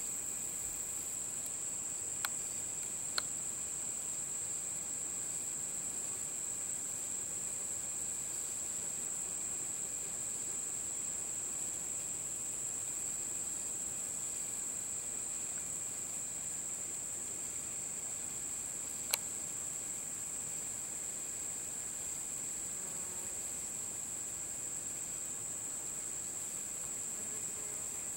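Steady, high-pitched chorus of insects trilling without a break, with three sharp clicks, two in the first few seconds and one about two-thirds of the way through.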